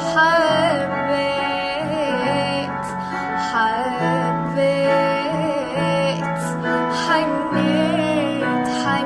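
Slow, tender Arabic song: a woman's voice singing an ornamented melody with wavering, bending notes over sustained keyboard chords.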